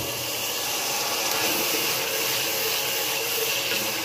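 Sliced onions sizzling in hot oil in a metal pot, a steady hiss.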